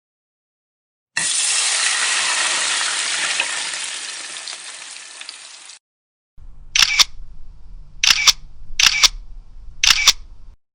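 A hiss that starts suddenly about a second in and fades away over about four seconds. Then a camera shutter sound effect: four quick double clicks over a low hum.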